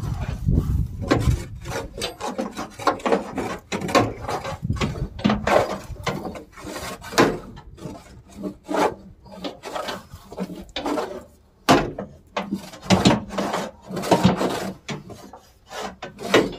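Irregular scraping and rubbing strokes against the metal underside of a combine thresher, coming every half second to a second, with a few sharper knocks among them.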